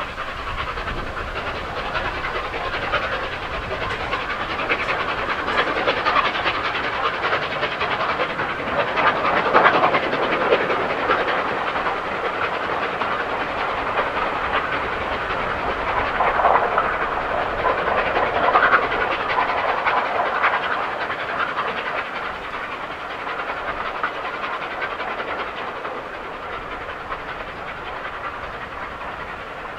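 LNER A3 Pacific steam locomotive 60103 Flying Scotsman working under steam as it hauls a passenger train, its exhaust and the train's running merging into a continuous rushing sound. The sound swells twice and eases off near the end.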